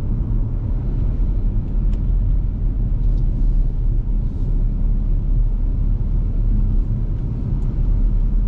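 Steady low road rumble of a vehicle driving along a highway, engine and tyre noise without change.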